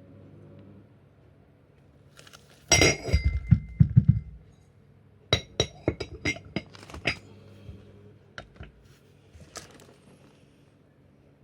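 A run of clinks and knocks of hard objects being handled: a close cluster of heavy knocks early on, then a string of sharp separate clicks, fading to a few faint ones near the end.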